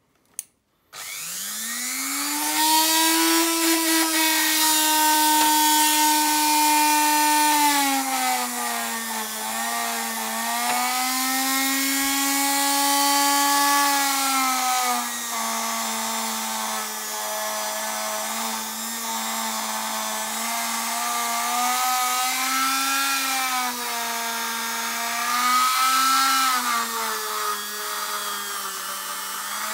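Handheld rotary tool with a felt polishing wheel: a click, then the motor spins up with a rising whine about a second in and runs steadily. Its pitch sags and recovers several times as the wheel is pressed against the metal body of an old manual hair clipper, polishing it.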